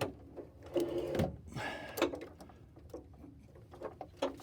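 Metal clicks and scrapes of a socket and breaker bar working a seized exhaust oxygen sensor loose, with a brief squeak about a second in as the tight sensor turns in its threads.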